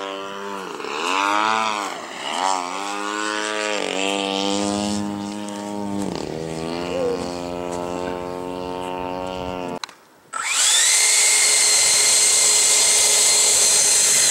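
Twin 72 mm electric ducted fans of a model jet whining, the pitch dipping and rising several times as the throttle is worked. After a brief break about ten seconds in, they give a steady, high-pitched whine with a rush of air.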